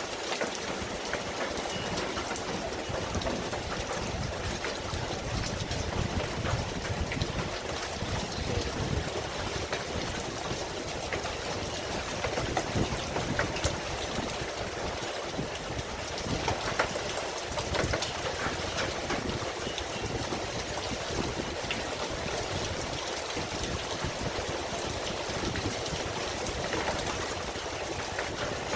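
Steady rain falling, with many separate drop hits ticking through the even hiss of the downpour.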